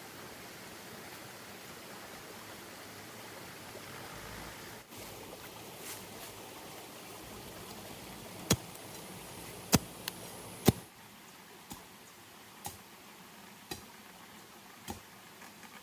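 A steady hiss that drops away about two-thirds of the way through, with sharp knocks: three loud ones in the middle, then fainter ones about once a second.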